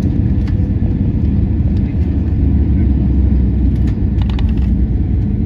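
Steady low rumble of cabin noise inside a passenger aircraft descending to land, with a few faint clicks about four seconds in.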